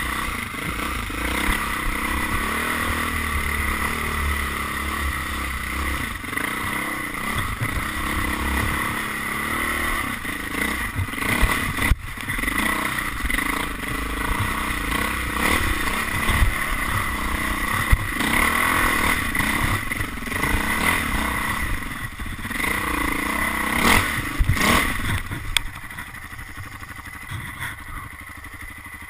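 Dirt bike engine revving up and down as the bike is ridden over a rough, rooty trail, with clattering knocks from the bumps. Near the end the engine drops to a quieter, lower run.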